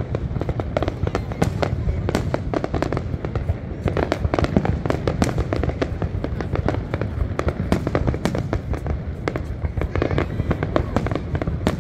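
Fireworks going off in a continuous, rapid barrage of bangs and crackles over a low rumble.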